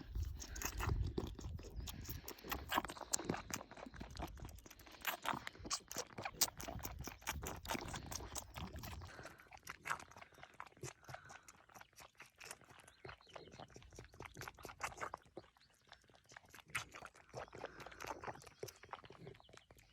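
A grazing animal close by, tearing and chewing grass in a rapid run of crisp crunching clicks, with heavier low thuds through the first half.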